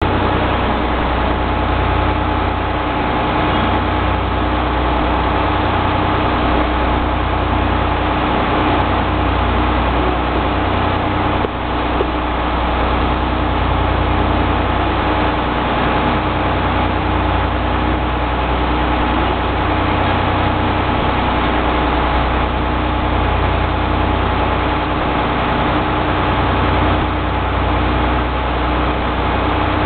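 Steady hum of idling railway equipment standing at the platform, a constant low rumble with two steady tones over it. There is a single brief click a little before halfway.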